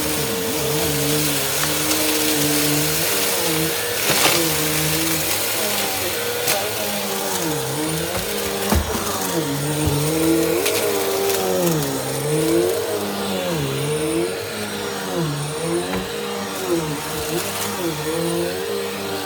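Bissell CleanView upright vacuum cleaner running, its motor note dipping and rising again every second or two as it is pushed back and forth in long passes, with a few light knocks.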